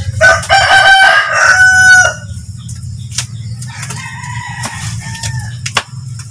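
A rooster crows loudly once, a call of about two seconds, followed a couple of seconds later by a fainter second crow. A few sharp scrapes and knocks of a hoe on the concrete pen floor fall in between.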